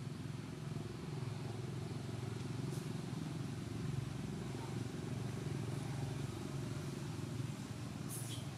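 A motor engine running steadily with a low rumble. Two brief high-pitched sounds cut in, one about three seconds in and one near the end.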